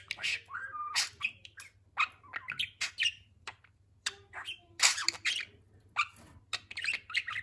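Budgerigar chattering: an irregular run of short chirps, clicks and warbles, with a brief lull about halfway through.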